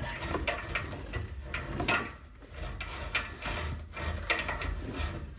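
Hand-held tailpipe cutter worked back and forth around an exhaust pipe, its cutting wheels scraping and clicking against the metal in a quick, uneven run of strokes with a couple of short pauses.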